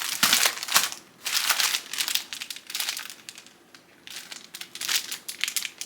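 Packaging crinkling and rustling in irregular bursts as it is handled and unwrapped.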